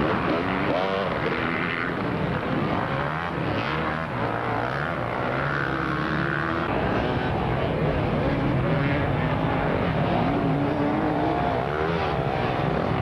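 Dirt bike engines revving hard as enduro motorcycles ride through the mud, several at once, their pitch rising and falling with the throttle and gear changes.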